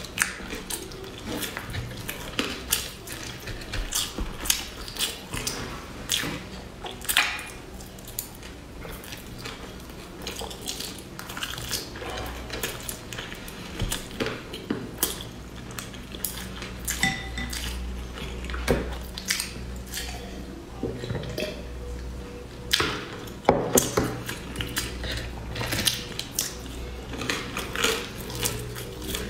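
Close-miked eating of sticky rice zongzi: soft, wet chewing and lip-smacking, with irregular clicks and taps of chopsticks against the wooden board as pieces are pulled off.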